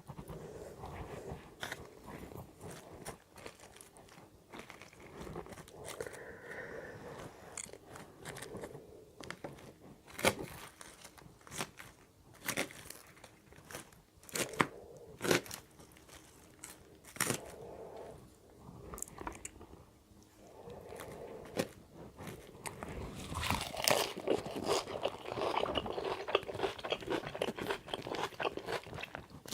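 Close-up eating of a chicken salad: crunching and open-mouth chewing with scattered sharp smacks, growing louder and denser over the last several seconds.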